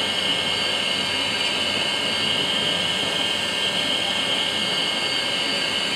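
Five-axis dental CAD/CAM milling machine at work, its high-speed spindle driving a fine bur through a white disc blank: a steady high whine over an even noisy hiss.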